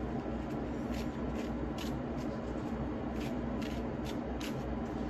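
A deck of tarot cards being shuffled by hand: a run of short, crisp card sounds, about two a second.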